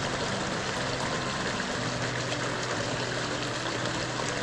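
Running water of a small woodland stream, a steady, even flow.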